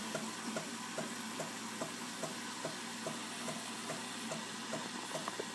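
Jura Impressa F50 espresso machine in steam mode: a steady hiss of steam through the professional milk frother, with a faint regular tick a little over twice a second from the machine's pump pulsing.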